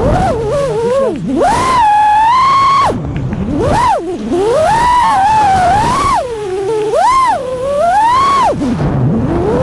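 FPV quadcopter's brushless motors whining, the pitch swooping up and down sharply with each throttle change, with several deep dips and quick climbs.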